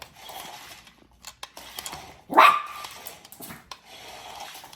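A dog barks once, sharply and loudly, about halfway through, excited by a toy robot moving on the floor. Faint clicks and scuffling come before and after the bark.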